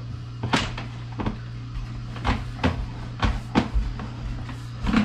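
Sewer inspection camera's push cable being fed by hand down the drain, the cable and reel clattering in irregular knocks over a steady low hum.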